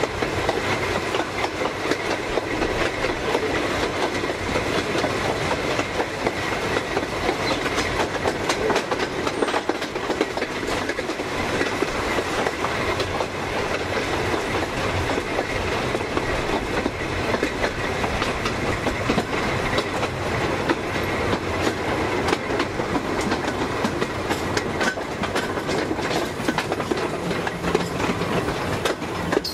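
Narrow-gauge steam train running along the line, heard from the locomotive itself: a steady rumble of wheels on rail with a dense clatter of clicks and rattles.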